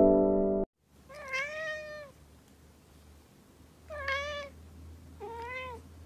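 Piano music breaks off suddenly in the first second. An orange tabby cat then meows three times, each call bending in pitch and lasting about half a second to a second.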